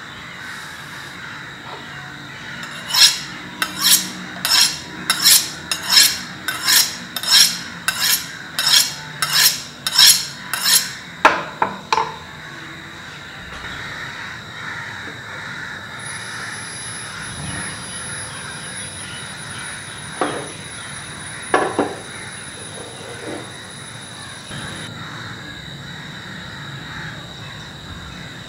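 Knife blade drawn along a steel honing rod: about sixteen quick, even strokes at about two a second, each a short bright scrape. Near the middle come a couple of metallic clinks and, later, a few sharp clicks.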